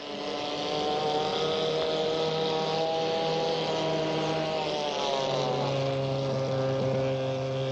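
Mercury outboard motors on small racing hydroplanes running flat out, a steady engine whine whose pitch sags slightly in the middle, with a second, lower engine note joining about five seconds in.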